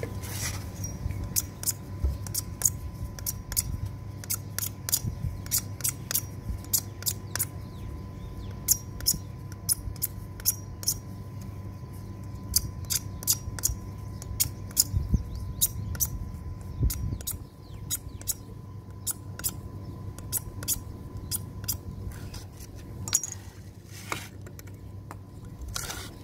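Hacksaw blade scraping the surface of a PVC pipe fitting in short, quick strokes, a couple a second, scoring it so the solvent cement will grip. The strokes thin out after about twenty seconds.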